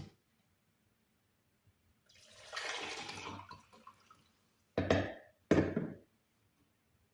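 Water poured into a saucepan for about two seconds, then two sharp knocks.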